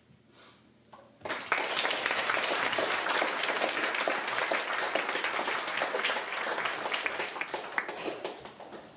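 Audience applauding, breaking out suddenly about a second in and fading near the end.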